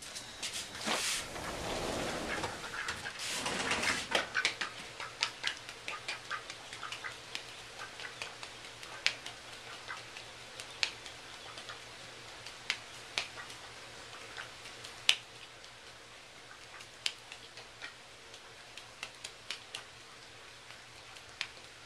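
A duck's feet tapping and its claws clicking on a hard floor as it runs in circles: irregular light clicks, one or two a second, with a few louder ones. The first few seconds hold a denser rustling and shuffling.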